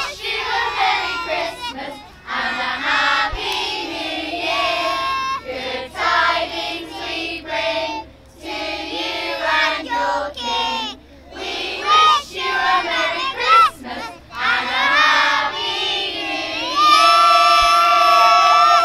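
A group of young children and adults singing together in ragged unison, ending in a long held shout near the end.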